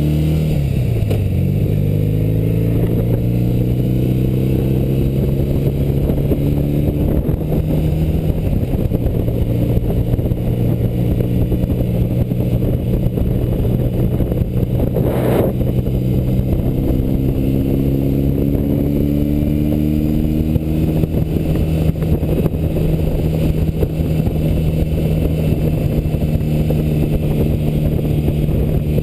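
BMW R75/57R boxer-twin motorcycle engine running under way at road speed, heard from the rider's position with wind noise over the microphone. The engine note drops at the start as the bike slows or shifts, then holds fairly steady and rises a little partway through. A brief thump comes about halfway through.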